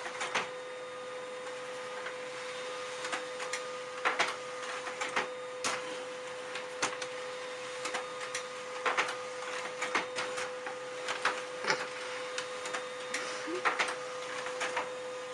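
A steady hum with irregular sharp clicks and knocks over it, cutting in and out abruptly.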